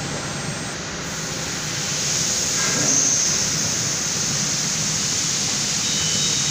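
1325 CNC wood router machine running: a steady rushing machine noise with no clear pitch, getting a little louder about two seconds in.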